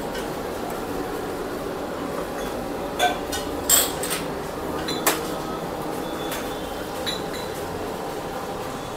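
Steady background din with a few sharp clinks, about three, four and five seconds in.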